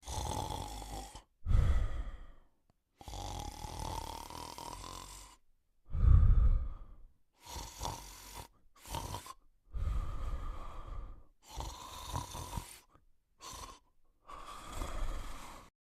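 Male cocker spaniel snoring in its sleep: a run of uneven snoring breaths with short pauses between them and a faint whistling tone through many of them, the loudest about a second and a half and six seconds in.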